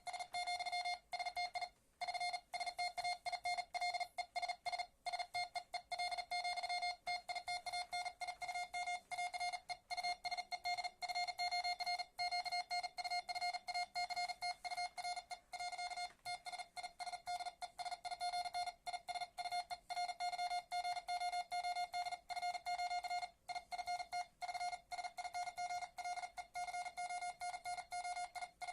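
Morse code (CW) sent on a single-lever paddle at about 45 to 50 words per minute, heard as the keyed sidetone. It is a rapid, nearly unbroken stream of dits and dahs on one steady beep pitch, with only brief pauses between some words.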